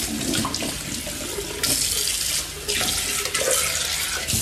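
Kitchen tap running onto a terracotta clay pot being rinsed in a stainless steel sink, the splashing getting louder and softer as the pot is turned under the stream.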